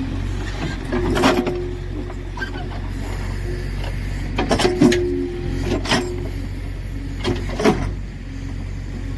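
JCB 3DX backhoe loader working: its diesel engine runs steadily under a whine that shifts up and down in pitch as the hydraulics move the arm. The bucket digs into stony soil, with sharp knocks and scrapes of metal on stones about a second in, several around the middle and a couple near the end.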